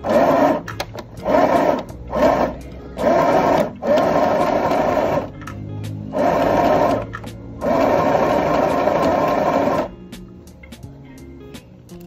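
Small electric sewing machine stitching fabric in stop-start runs, about seven of them, the last and longest about two seconds; it stops near the end.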